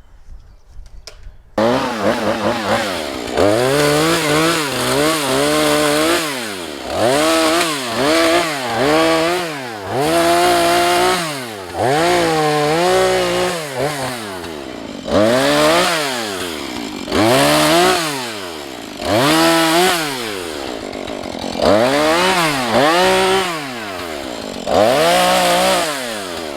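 Husqvarna 435 two-stroke chainsaw coming in about a second and a half in, then revved over and over, its pitch rising and falling every second or two between high revs and a lower idle.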